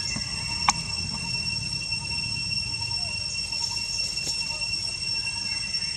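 Steady high-pitched whine of two constant tones over a low rumbling background, with one faint click a little under a second in.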